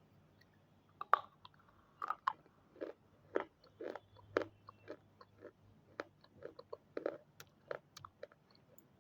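Close-up biting and chewing of hard red triangle pieces: a string of sharp, separate crunches, about one or two a second, starting about a second in.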